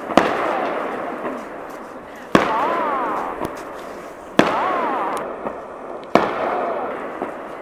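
Aerial firework shells bursting overhead: four sharp booms about two seconds apart, each followed by a long rolling echo that slowly dies away.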